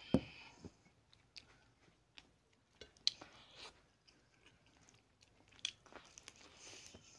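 Close-miked eating sounds: a person chewing and biting, with hands pulling a piece off a fried tilapia fish head, marked by scattered sharp mouth clicks, the loudest just at the start.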